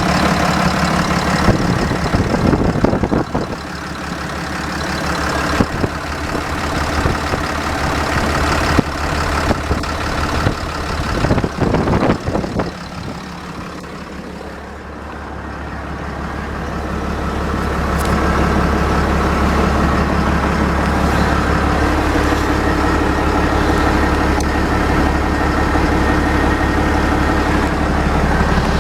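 Cummins ISB 6.7 inline-six turbo diesel engine running on its own, out of a vehicle, with a few sharp knocks in the first half. About halfway through it grows louder and then runs steadily.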